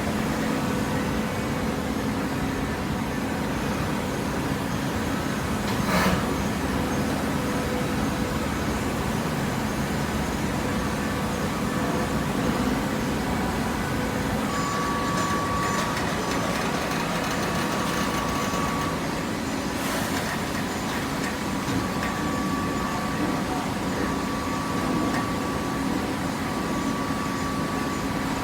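Gasoline engine of a box-baling press running steadily, with a thin whine that comes and goes over the second half and two sharp clicks, one early and one about two-thirds of the way through.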